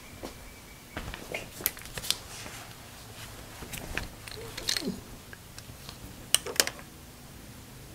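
Handling noises: rustling and scattered clicks and knocks as a man gets down onto cardboard on the floor and handles a flashlight and hand tools, with two sharp taps close together about six seconds in.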